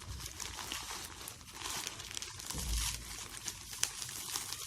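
Parcel packaging crinkling and tearing as it is pulled open by hand, a dense run of small crackles with a dull thump near the middle.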